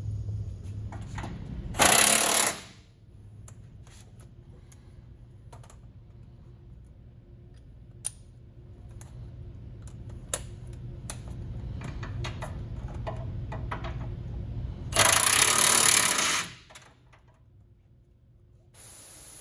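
Cordless impact wrench running in two short bursts, a brief one about two seconds in and a longer one of about a second and a half near the end, tightening suspension bolts. Light clicks and knocks of tools on metal come between the bursts.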